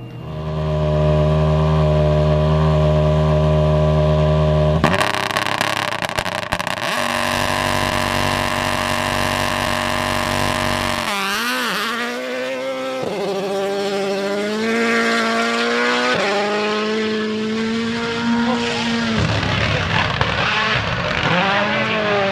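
Rally car engine at high revs: a steady note for about five seconds, then a harsher, rougher stretch, then accelerating through the gears, the pitch climbing and dropping back at each shift.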